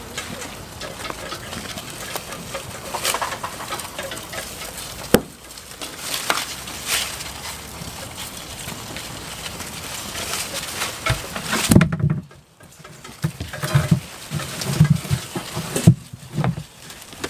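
Goats tearing at and chewing the leaves of a leafy branch: a steady rustle of foliage with crackles and sharp snaps. Near the end a plastic tub is handled, giving a few low knocks.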